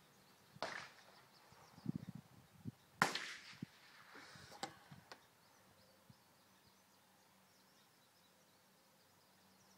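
A few faint, short clicks and knocks in the first five seconds, then near silence for the rest.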